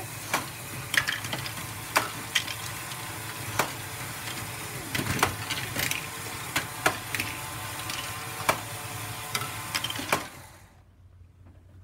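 LEGO Great Ball Contraption Archimedes-screw module running, driven by an M motor through gear reductions: a steady rattling clatter of plastic gears and parts with irregular sharp clicks. It stops abruptly about ten and a half seconds in as the battery box is switched off.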